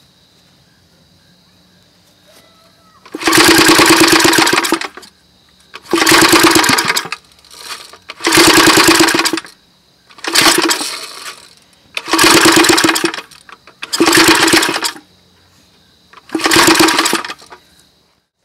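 Small unmuffled piston-valve gasoline engine being pull-started over and over: seven times it fires in a loud, rapid burst of about a second, then dies. It will not keep running.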